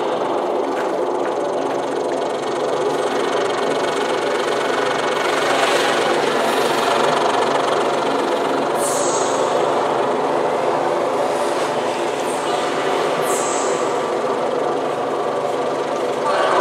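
Electric cello bowed in long sustained drone notes, amplified through loudspeakers, with a grainy, scraping bow texture over steady held pitches.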